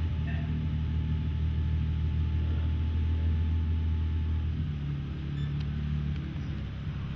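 BMW E36 drift car's engine held at steady high revs during a stationary burnout, with the rear tyre spinning and smoking. The revs and loudness ease off somewhat a little over halfway through.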